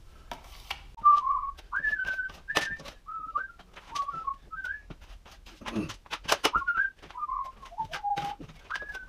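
A person whistling a wandering tune of short held and gliding notes. Alongside it come the short scrapes and taps of a drywall knife loading hot mud from a mud pan and pressing it into a plaster wall seam.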